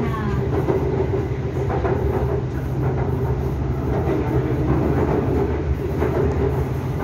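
BTS Skytrain carriage running along its elevated track, heard from inside the car: a steady rumble with a constant hum.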